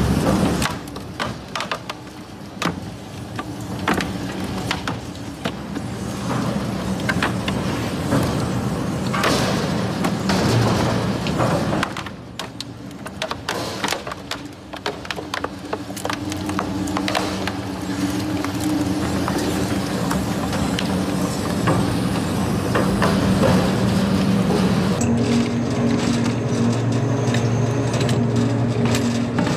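Heavy crushing machine running with a steady engine drone, broken by many irregular cracks and crunches as material is broken up; the sound changes abruptly near the end.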